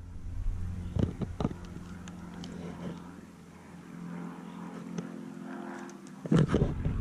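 Handling knocks and clicks of an airsoft rifle and gear on a wooden bench: a few light ones about a second in and a louder cluster near the end, over a steady low hum.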